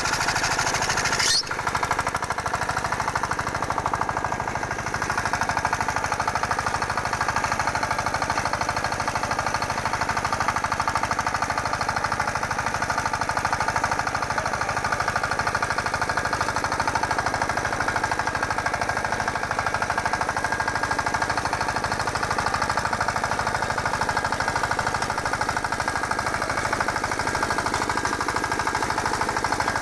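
The engine of a multi-attachment rotavator and cultivator machine running steadily, with a fast, even knocking beat. A single sharp click comes about a second and a half in.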